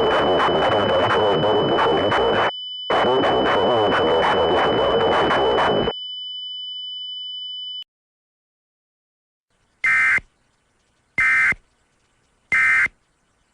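A harsh, noisy sound with a steady high tone running through it, breaking off briefly about two and a half seconds in. The noise stops at about six seconds, and the tone runs on alone until it cuts off near eight seconds. After a pause come three short warbling data bursts about a second and a half apart: Emergency Alert System end-of-message tones, signalling the end of the alert.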